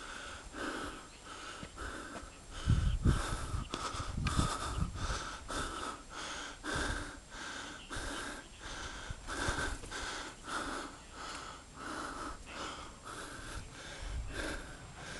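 Heavy, rhythmic breathing close to the microphone, a wheezy puff about every half second without a break, the sound of someone out of breath from climbing. A few low bumps come about three and four and a half seconds in.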